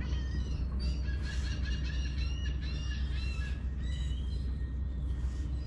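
Birds calling: many short, overlapping chirping notes, repeated throughout, over a steady low rumble.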